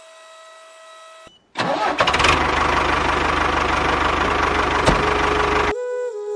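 Tractor engine starting with a few clicks, then running steadily with a rapid low pulse, and cutting off suddenly about five seconds in.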